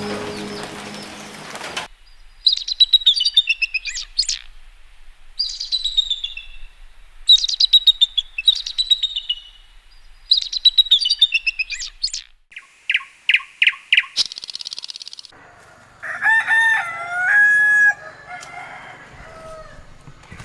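Birds calling: repeated chattering chirps, each falling in pitch, then a quick run of four or five even whistled notes, followed by a rooster crowing once about sixteen seconds in.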